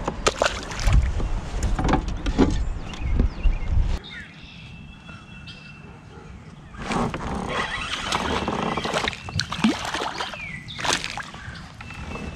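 Knocks and water sloshing around a fishing kayak, with sharp clunks in the first few seconds. The sound drops abruptly quieter about four seconds in and picks up again with more knocks near the end.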